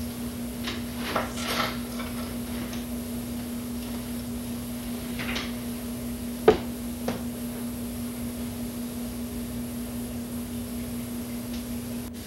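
Steady low hum with a few scattered knocks and rustles of someone moving about a room and handling a bag. The loudest is a single sharp knock about six and a half seconds in.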